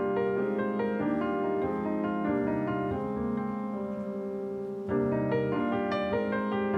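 Solo piano playing slow, sustained jazz chords, with a louder new chord struck about five seconds in.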